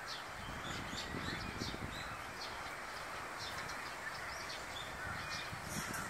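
Eurasian tree sparrows chirping: many short, quick chirps scattered throughout, over steady background noise.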